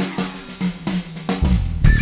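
Rock band music dominated by a drum kit: separate hits on snare, bass drum and cymbals. Heavy low bass notes come back in about a second and a half in.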